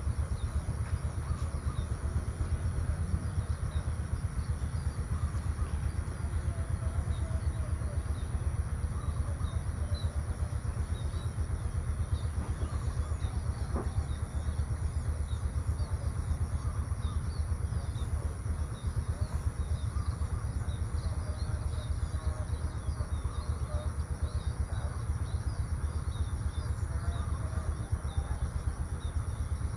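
Outdoor rural ambience: a steady low rumble under faint scattered bird chirps, with a steady high hiss above.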